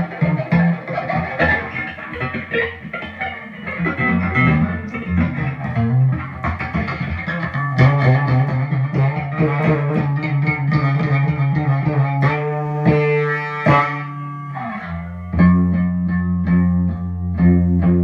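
Guitar playing a blues instrumental: quick picked notes, then held ringing chords from about three quarters of the way through.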